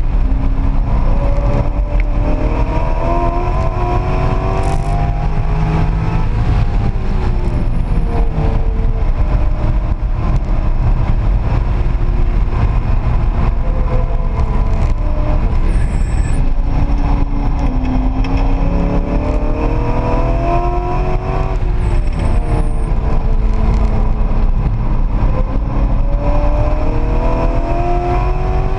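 Car engine heard from inside the cabin at speed on a race track, climbing in pitch under hard acceleration, easing off about six seconds in and again about twenty-one seconds in, then pulling up again, over a steady rumble of road and wind noise.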